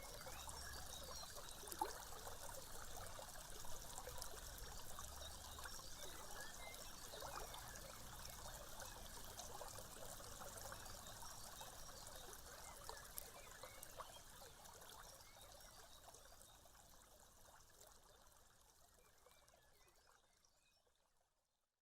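Nature ambience of running water trickling, with small scattered chirps and clicks, fading out to silence near the end.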